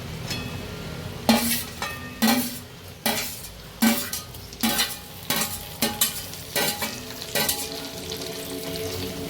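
A spoon stirring chicken gizzards and liver frying in a pan, most likely a kadhai. The spoon knocks and scrapes against the metal about ten times, roughly once a second, over a steady sizzle.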